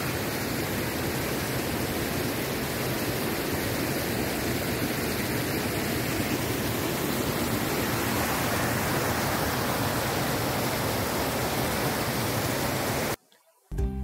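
Mountain stream rushing and splashing over rocks in a steady, full rush of water. It cuts off abruptly about a second before the end.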